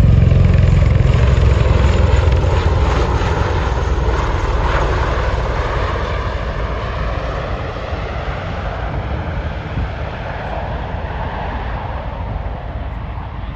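Airplane passing overhead: a loud engine rumble that is strongest at the start and fades steadily away.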